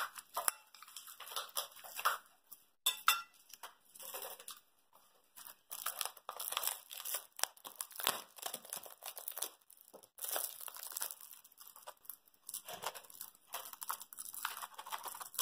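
Irregular rustling and crinkling as a cardboard box of chaat masala is handled over a ceramic bowl, with a few sharp taps or clinks.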